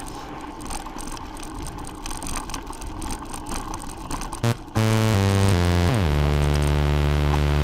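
Mountain bike riding over a dirt track: a steady rush of wind and rolling noise with frequent small rattles and knocks. About two-thirds of the way in, loud electronic dance music cuts in over it, with a deep bass line that steps down in pitch.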